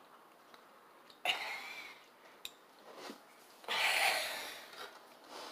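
A girl's breathy gasps: a short sharp exhale about a second in, then a longer, louder open-mouthed gasp about four seconds in, her throat burning from spicy candy.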